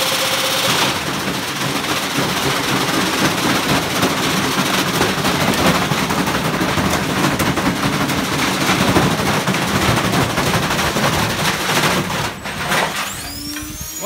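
Stacked Candy Grand'O Plus and Hoover washing machines spinning with bricks in their drums: loud, rapid, continuous banging and clattering as the bricks slam around inside and the machines tear themselves apart. The banging stops near the end, leaving fainter gliding whines.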